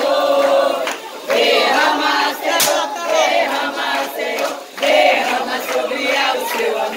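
A group of party guests singing and chanting together in loud phrases, with two short breaks, about a second in and past the middle.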